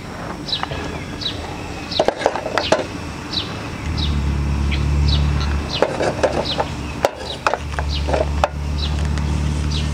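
A metal ladle knocking and clinking against a small metal pot and an enamel bowl as curry is served, a few separate strikes. Birds chirp in short falling notes about twice a second throughout, and a low steady hum comes in twice, for a couple of seconds each time, louder than the rest.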